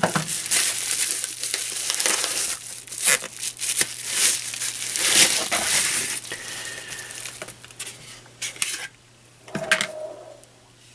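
Plastic packaging crinkling and rustling in bursts as it is handled and unwrapped. It goes quieter about nine seconds in, with a couple of brief rustles near the end.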